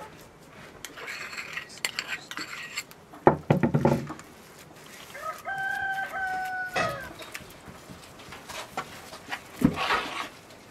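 A metal spoon scrapes and knocks against a pan while a fish mixture is stirred, with the loudest clatter a little past three seconds in and another sharp knock near the end. A rooster crows once in the middle, a held call about a second and a half long.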